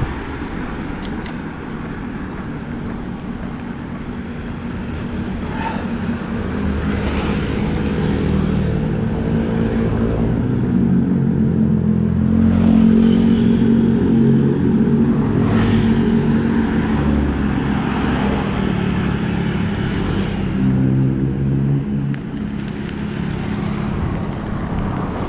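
Bicycle tyres rolling on the road with a steady hum and road noise, swelling louder toward the middle and easing off near the end.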